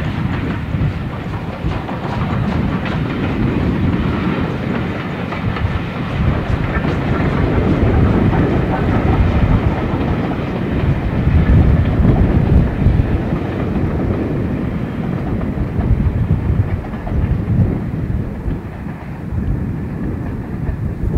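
Steam-hauled passenger train running past, the coaches' wheels rumbling and clattering on the rails; the sound fades over the last several seconds as the end of the train goes by.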